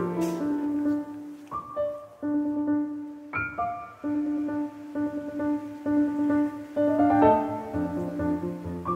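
Background piano music, with held notes that change about every second.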